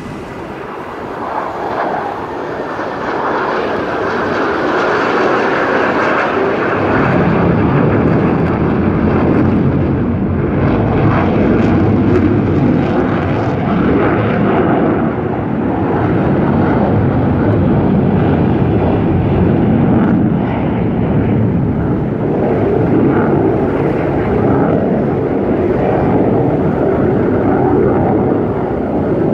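Su-30MK2 fighter jets flying overhead, their twin turbofan engines giving a loud, deep rumbling noise. It builds over the first few seconds, grows deeper and louder about seven seconds in, then stays loud with slow swells.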